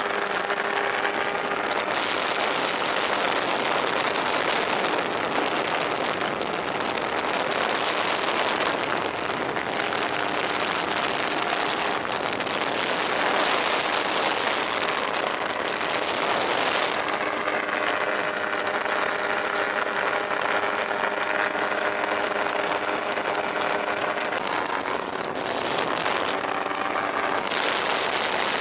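Fox V4 ultralight's engine and propeller droning steadily in flight, with wind rushing over the microphone in strong gusts that come and go.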